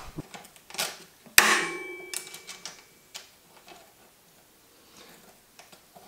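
Light metallic clicks and knocks of tools and bike parts being handled, with one sharp metal clink about a second and a half in that rings briefly.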